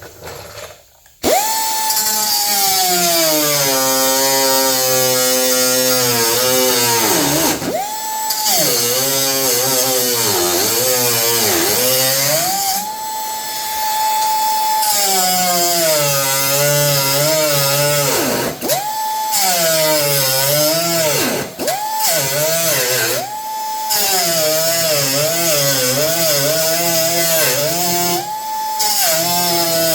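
High-speed cut-off tool trimming a steel hood patch panel: a loud whine that holds steady when running free and sags in pitch each time the wheel bites into the metal, recovering as it eases off. It stops briefly a few times and starts again.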